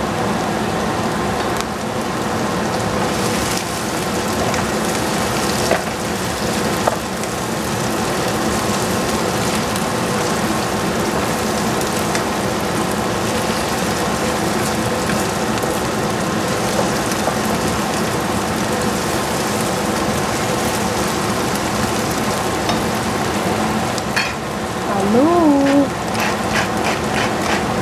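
Sliced red onions sizzling steadily in an oiled frying pan as they caramelize, with a wooden spatula stirring them now and then. Near the end come a quick run of grinder clicks and a brief sung voice.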